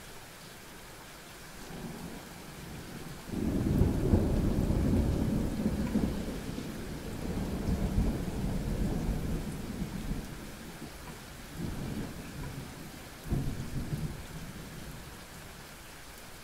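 Thunder over steady rain: a low rumble starts about two seconds in, breaks into a loud crack a second later and rolls on for several seconds, followed by two shorter rumbles near the end.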